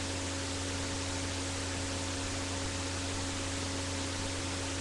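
Steady hiss from a webcam microphone's recording, with a low electrical hum underneath; no other sound stands out.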